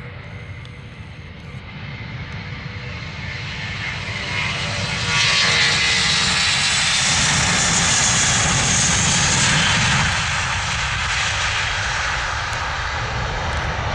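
Airliner's engines passing close by: a rushing roar that builds over the first few seconds, peaks and holds from about five to ten seconds in, then eases slightly.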